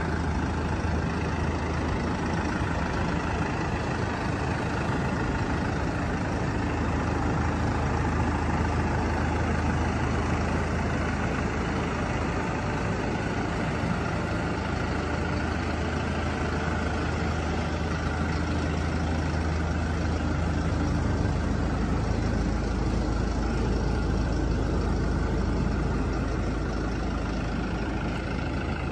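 Hino 300 Series light truck's diesel engine idling steadily, a constant low hum.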